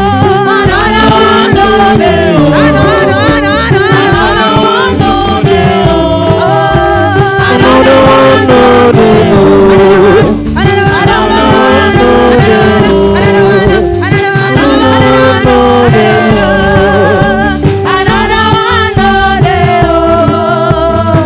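Gospel song: a singer's voice with vibrato over instrumental backing with a steady beat.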